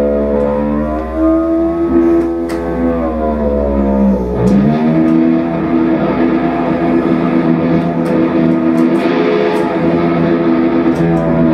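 Electric guitar through effects, sounding held, layered tones. About four seconds in, the pitches slide down and swoop back up, and a low drone underneath stops at that point. A few faint clicks sound over the top.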